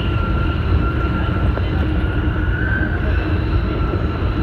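Tsukuba Express electric train running at speed on elevated track, heard from inside the train: a steady deep rumble with a steady high whine on top that swells briefly a little past halfway.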